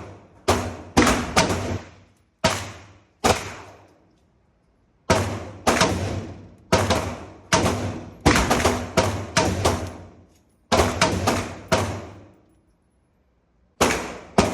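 Shots from an LWRC 5.56 rifle fired one at a time in irregular strings, about sixteen in all, with short pauses between strings. Each report is sharp and followed by about a second of echo.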